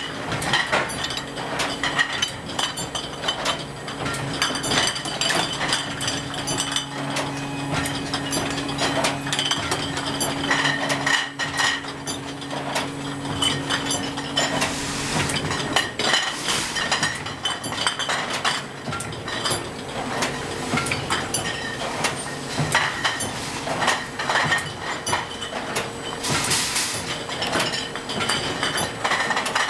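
Empty glass wine bottles clinking and knocking against each other and the metal guides of a wine bottling machine, over the machine's steady running hum. Two short hisses come through, about halfway and again near the end.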